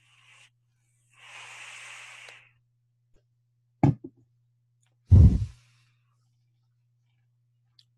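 A long breathy exhale, then two heavy thumps close to the microphone, the second louder, over a faint steady electrical hum.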